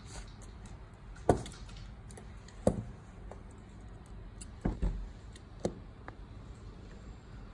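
About five sharp clicks and knocks, scattered over several seconds, as a steel digital caliper and tweezers are handled.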